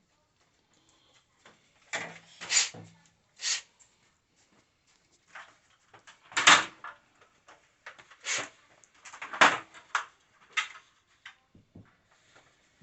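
Irregular knocks, clacks and scrapes of hard objects being handled, about a dozen with short gaps of quiet between them; the loudest come about six and a half and nine and a half seconds in.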